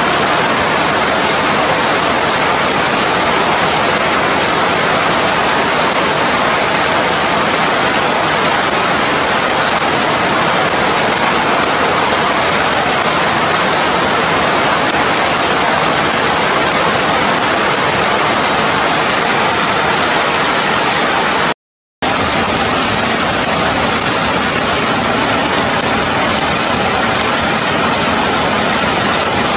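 Heavy rain falling steadily on forest leaves and branches, a dense even hiss. It cuts out completely for a split second about two-thirds of the way through.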